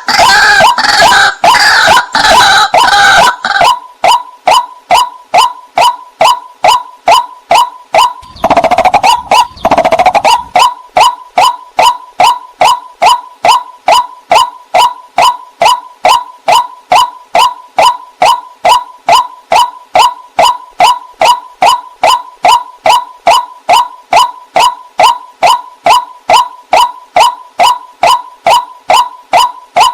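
White-breasted waterhen calling: one short note repeated evenly, about two to three times a second. In the first few seconds, and again briefly about nine seconds in, a louder, jumbled run of overlapping calls.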